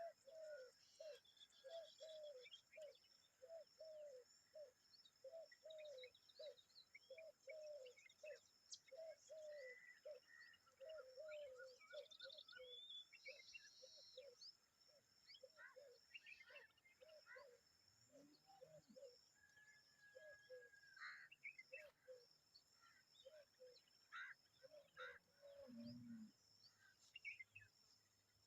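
Faint bird calls: a steady run of short, low, repeated notes, about two a second, stopping a few seconds before the end, with scattered higher chirps and whistles over them.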